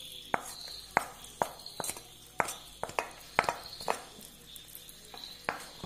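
A spoon tapping and scraping against a small frying pan, about a dozen sharp, irregular clinks, as fried cashews and raisins are knocked out into the payasam.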